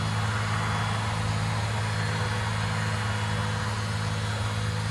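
A steady low hum under a constant hiss, with no sudden event.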